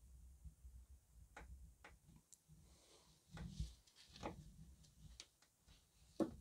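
A few irregular clicks and light metallic knocks from a digital torque wrench being ratcheted and worked on the auxiliary belt tensioner bolt, with the sharpest knock near the end.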